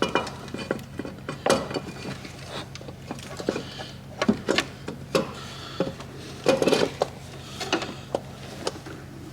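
Metal parts clinking and knocking irregularly as an intake manifold is worked into place on a Mazda 13B rotary engine, over a steady low hum.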